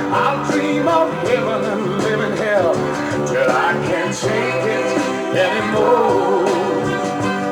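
Instrumental passage of a 1971 pop-rock recording: the band plays on between sung lines, with a melody line sliding up and down in pitch over it.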